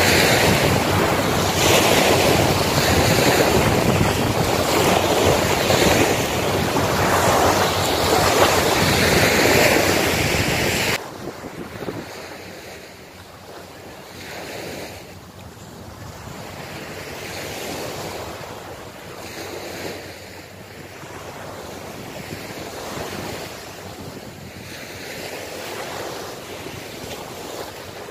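Small waves breaking on a sandy beach, with wind blowing on the microphone. The loud wind noise drops away abruptly about eleven seconds in, leaving quieter, gently swelling surf.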